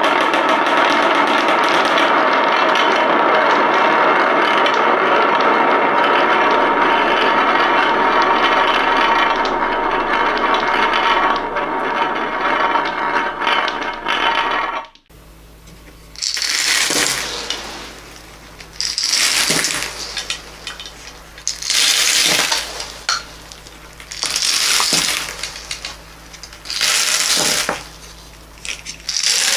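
Small hard objects clinking and clattering in a dense, continuous pour, with many ringing tones mixed in, stopping abruptly about halfway through. After that, a run of short, separate rattling rushes comes about every two and a half seconds.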